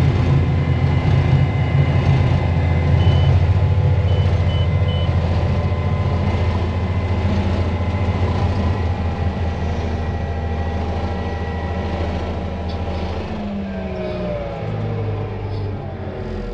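Big Bud tractor's diesel engine running under load, a heavy steady rumble heard from inside the cab. A few short high beeps sound about three to five seconds in, and the engine note drops and slides lower from about thirteen seconds in.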